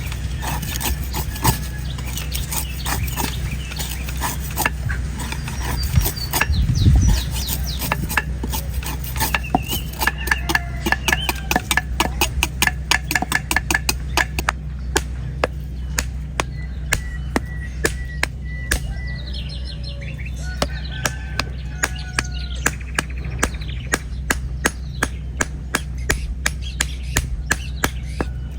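A sharp knife chopping again and again into the dry, hard husk of an old coconut: a fast, even run of crisp strikes, about two a second in the second half. Birds chirp in between.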